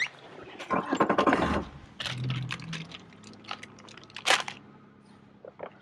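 Handling noise aboard a small aluminum fishing boat as gear is moved about: a loud stretch of rustling and scraping in the first second and a half, then scattered clicks and knocks, the sharpest one a little past four seconds.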